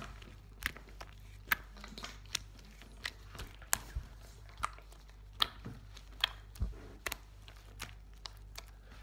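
Fingers poking and pressing slime, giving a series of short sharp squelchy pops, roughly one a second at uneven spacing.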